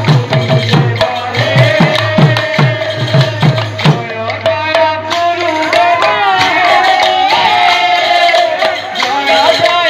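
Sambalpuri kirtan music: double-headed barrel drums played in a quick run of low strokes over a held note. About four seconds in the drumming stops and a singing voice carries on over the held note.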